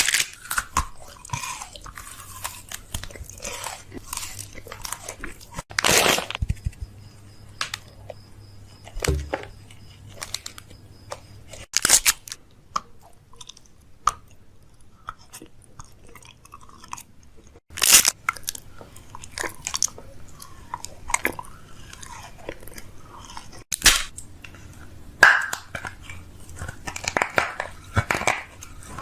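A person chewing and biting into something crunchy: irregular crunches and small clicks, with several louder crunches spread through.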